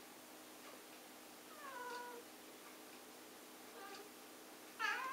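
Calico cat meowing three times: a soft meow about a second and a half in, a short faint one near four seconds, and a louder meow at the end.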